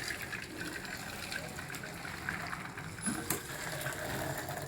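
Boiled vermicelli and its hot cooking water being poured from the pot into a colander, the water gushing and draining through, with a single short knock of the pot about three seconds in.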